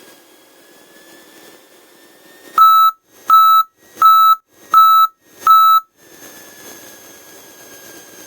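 An aircraft angle-of-attack warning sounding through the intercom during the landing flare. From about two and a half seconds in it gives five sharp, high beeps, about 0.7 s apart, over the faint hum of the idling engine. The warning signals that the wing is nearing the stall as the plane is held off for touchdown.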